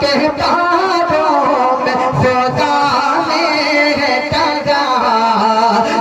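Male voice singing a naat in long, wavering melismatic notes, with a light rhythmic beat of low thumps under it.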